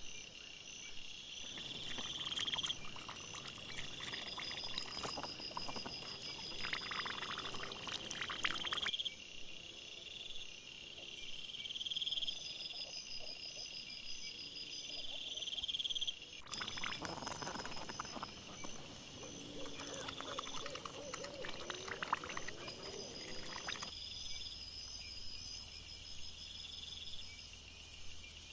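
Night insects chirping in steady, evenly pulsed trills, with two stretches of rustling and low grunting from wild boar and piglets feeding close by. The trail-camera audio is played back sped up, and it changes abruptly at several clip joins.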